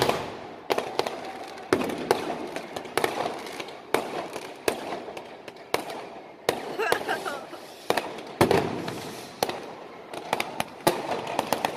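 Fireworks and firecrackers going off across the city: an irregular string of sharp bangs, about one or two a second, each trailing off in an echo.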